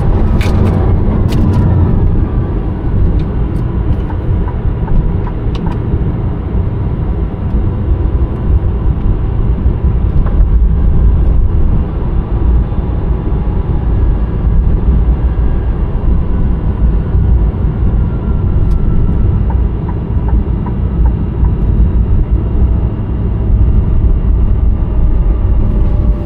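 Rimac Nevera electric hypercar under way, heard from inside the cabin: a loud, steady low rumble of road and tyre noise, with a faint whine that falls in pitch near the start and rises again near the end.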